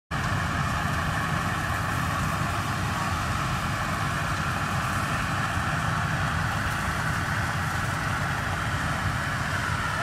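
Rice combine harvester running steadily as it cuts through the paddy: a continuous engine drone with a hiss over it.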